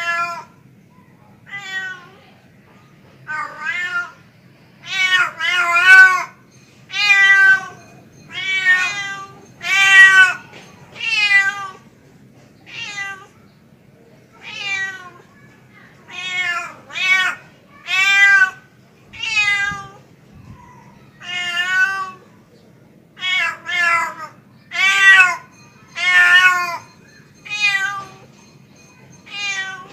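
Tomcat meowing over and over, a long run of short calls, often in quick pairs or threes, each bending in pitch, with a pause of a few seconds near the middle: a male cat calling for a female.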